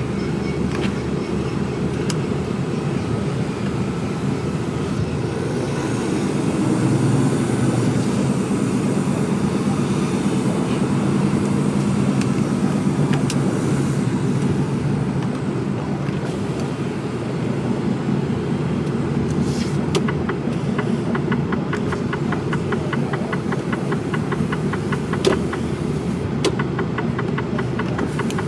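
Mercedes Actros truck's diesel engine running as heard from inside the cab while the lorry drives off, the note rising a little as it pulls. In the second half a fast, light ticking runs over the engine.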